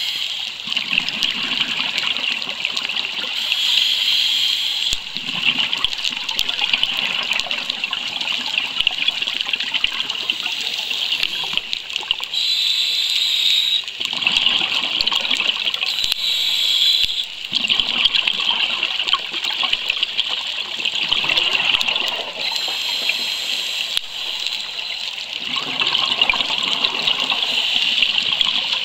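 Scuba regulator breathing underwater: a hissing inhale alternates with bursts of bubbling exhaust every several seconds.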